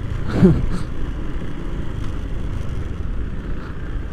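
Low, steady rumble of a motorcycle idling in stopped traffic, with surrounding vehicle engines, and a brief vocal sound about half a second in.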